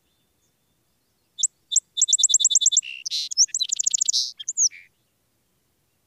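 A songbird singing: a rapid series of about eight sharp, high repeated notes, then a faster, buzzier trill and a few downslurred whistles.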